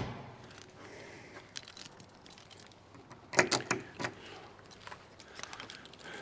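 Loose metal jangling and clinking, with a burst of sharp clatters about three and a half seconds in.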